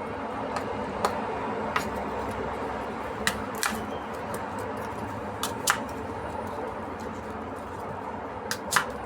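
Sharp clicks and clinks of kitchen utensils against cookware, about nine at irregular intervals, over a steady whirring hum.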